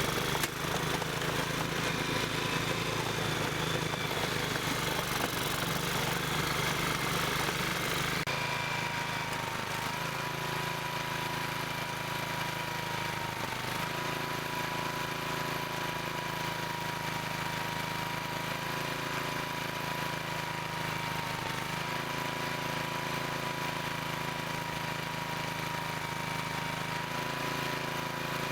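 Snowblower's small engine running steadily under load while clearing snow. About eight seconds in the sound shifts abruptly, and a steady high whine runs over the engine from then on.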